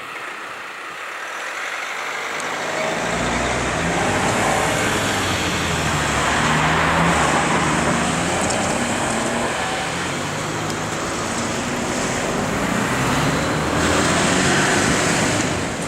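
Freight train carrying limestone passing over a level crossing: a heavy rolling rumble that sets in about three seconds in and carries on, swelling and easing.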